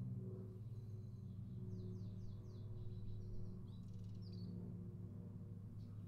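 A bird singing faintly: a thin whistle, then four quick downslurred notes about two seconds in and a short chirping phrase about four seconds in, over a steady low hum.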